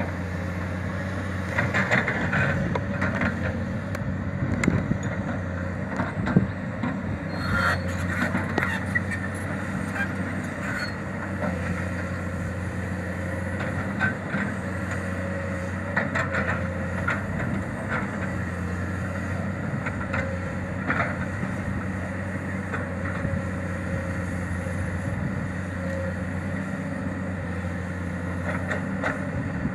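Komatsu PC200 crawler excavator's diesel engine running steadily under load, with scattered short clanks and rattles as the bucket digs and moves soil.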